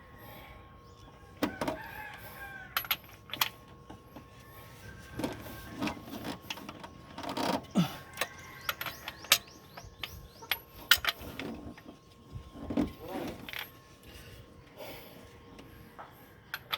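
A rooster crowing in the background, twice, amid scattered sharp clicks and knocks.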